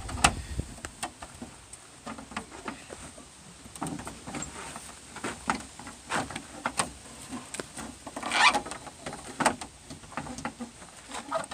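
Scattered light clicks and knocks of hard parts being handled and fitted, typical of working on a van's door latch and its plastic clips. A short rasping noise comes about eight and a half seconds in.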